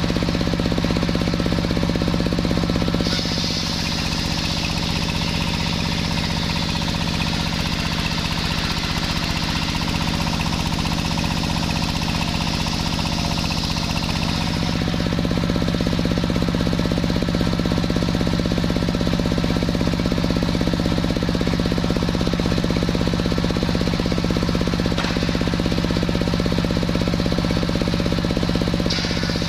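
Sawmill running: a steady engine-driven machine hum, with a higher sawing sound over it from about three seconds in until about fourteen seconds, starting again near the end, as the saw cuts through waru wood.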